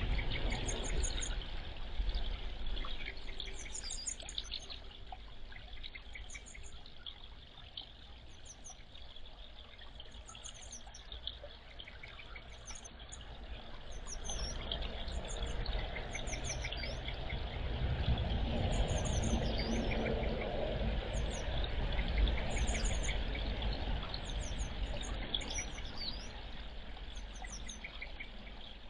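Grey wagtails giving short, sharp, high-pitched call notes in quick little groups over and over, over a steady rushing background like trickling water that grows louder in the middle.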